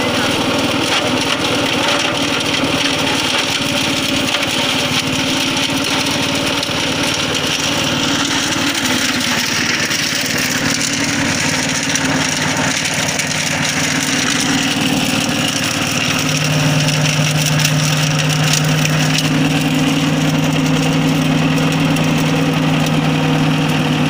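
Rico RI6060 wood chipper's 6.5 hp engine running steadily while branches are fed through and chipped. Its engine hum grows stronger about two-thirds of the way through.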